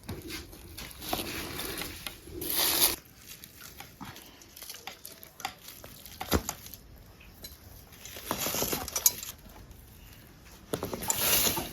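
Irregular rustling and crunching of dry leaves and spiky chestnut burrs, in short clusters with a few sharp clicks.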